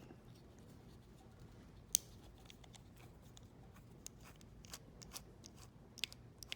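Light scattered clicks and taps from handling a small plastic model locomotive and a screwdriver at its underside screws, with one sharper click about two seconds in.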